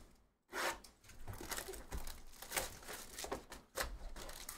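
A cardboard trading-card hobby box being torn open by hand: a sharp rip about half a second in, then irregular tearing and crinkling of cardboard and wrapping.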